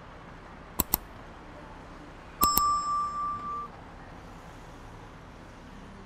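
A small metal bell: two quick clicks about a second in, then two more clicks followed by a clear ding that rings, wavers and dies away after about a second.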